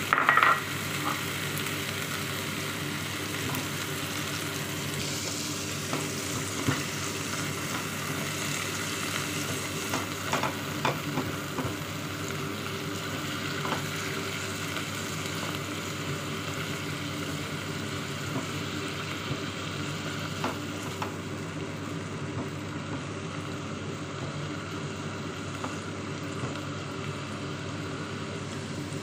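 Chopped mushrooms, onion and garlic sizzling steadily as they fry in oil in a nonstick pan. They are stirred with a silicone spatula, which knocks briefly against the pan a few times.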